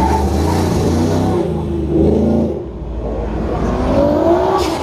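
Exotic sports car engine revving and accelerating, its pitch rising and falling several times over a loud, deep rumble.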